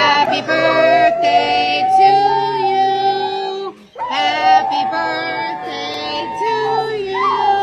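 Music with a high, synthetic-sounding sung voice, in two long phrases with a short break about four seconds in.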